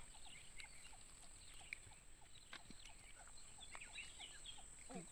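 Near silence: faint outdoor ambience of scattered small bird chirps over a steady high-pitched hum.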